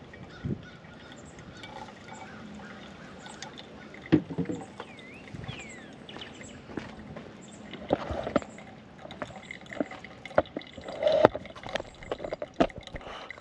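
Clinks and knocks of camp coffee gear being handled, with liquid being poured. The sharpest knocks come about four seconds in and again near eleven seconds.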